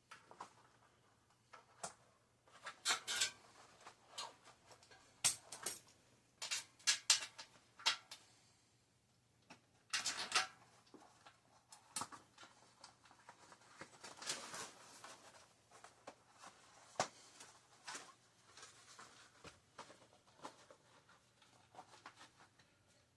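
Irregular handling noises: short clicks, scrapes and rubbing, the loudest clusters about 3, 5 to 8 and 10 seconds in, from working a bicycle tire and rim liner on the rim by hand.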